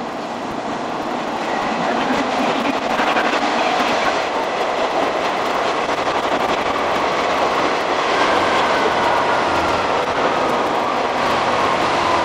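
Jōsō Line diesel railcar running along the track: steady wheel-on-rail rumble and rattle that builds over the first couple of seconds. A faint whine slowly falls in pitch in the second half.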